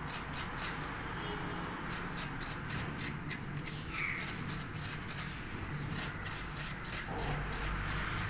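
Fresh coconut flesh being grated from a half shell with a hand-held grater. It makes rapid, even scratchy scraping strokes, about three a second.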